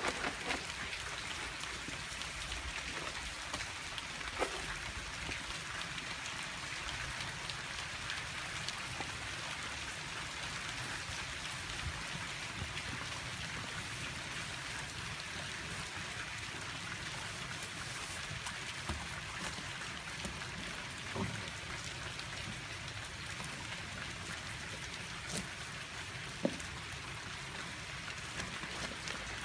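Steady rain falling, an even hiss, with a few faint taps and clicks here and there.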